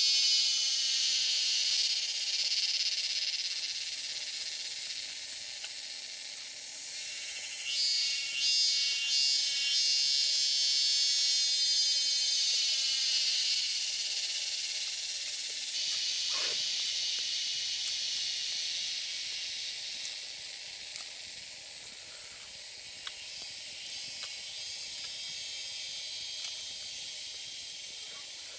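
Forest insects buzzing in a high, continuous drone, with a second buzz swelling in about eight seconds in; the drone grows quieter after about sixteen seconds.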